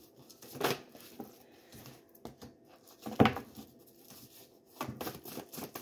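A deck of tarot cards being shuffled by hand: soft, scattered slides and taps of the cards, with one louder tap about three seconds in and a quick flurry of card sounds near the end.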